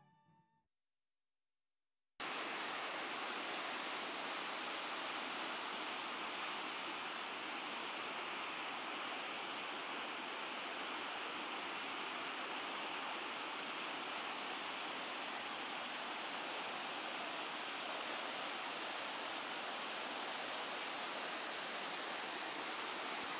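Steady rushing of a shallow mountain river running over rocks and stones. It comes in suddenly about two seconds in, after a brief silence.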